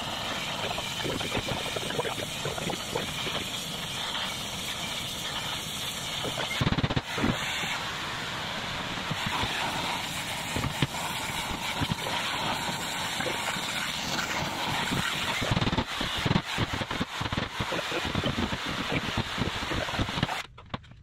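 A steady roaring hiss with irregular heavy knocks, loudest in a run near the end: a bent steel part being heated and hammered back into shape.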